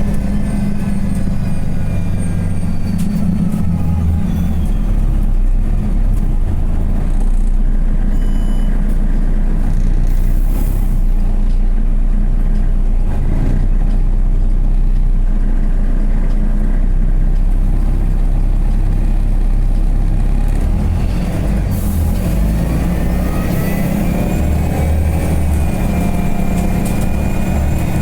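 City bus engine and road noise from inside the cabin while riding. The engine pitch climbs as the bus accelerates near the start and again near the end, with a steadier cruise between.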